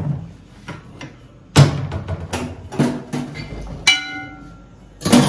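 Kitchen clatter as cookware and ingredients are handled on a counter: a few separate knocks, one of them about four seconds in ringing on briefly with a metallic tone, as of a metal pot or lid being struck, and a louder knock near the end.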